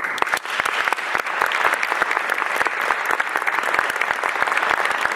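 Audience applauding: the clapping breaks out suddenly, fills out over the first second, then holds steady.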